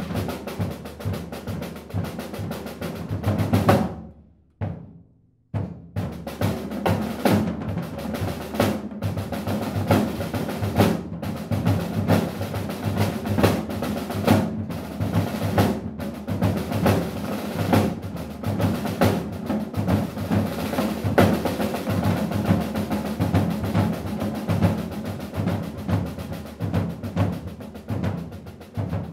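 Snare drums played by several percussionists in fast, tightly interlocking rhythms with rolls. The playing cuts off suddenly about four seconds in, with a moment of silence, then starts again and runs on with a few brief stops.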